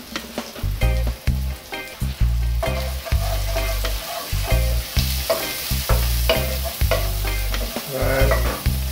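Wooden spoon stirring and scraping in an aluminium caldero while butter with thyme sizzles over medium heat, with many sharp clicks and knocks of the spoon against the pot. Low rumbling thuds come and go throughout.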